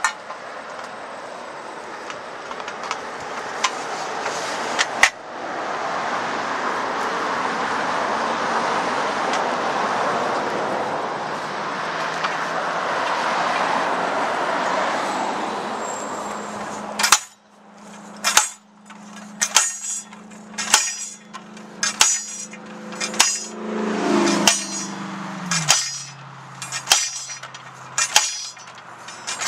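Manual post driver hammering a steel guide post, about a dozen sharp metallic clangs roughly a second apart, each with a ringing tone that drops lower about two-thirds of the way through. Before the hammering starts, a long steady rush of passing road traffic swells and fades, with one sharp click early on.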